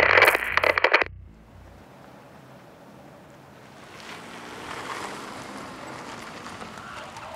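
Loud music cuts off about a second in, leaving steady wind and lake surf. From about four seconds in, a car approaches and pulls in on a gravel lot, its engine and tyres rising slowly and then holding.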